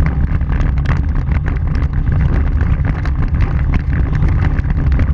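A vehicle rolling along a gravel dirt road, heard from low on its front bumper: a steady heavy rumble of tyres on the road surface, with wind buffeting the microphone and frequent small clicks of loose stones.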